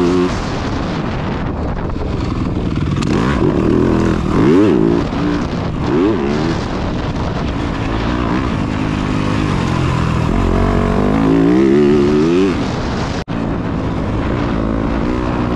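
Yamaha dirt bike engine being ridden hard off-road, its pitch rising and falling again and again with throttle and gear changes. The sound cuts out for an instant about thirteen seconds in.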